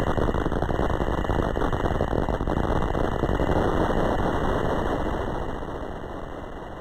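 Drag racing car's engine running loud and rough at the start line while the car rolls slowly forward, fading over the last couple of seconds.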